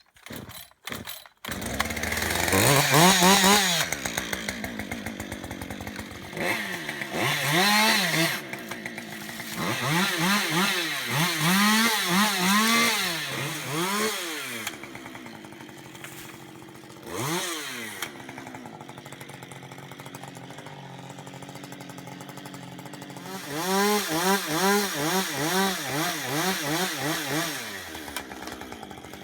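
Two-stroke chainsaw starting up about a second and a half in, then revved repeatedly in short rising-and-falling bursts, dropping back to a lower run between them.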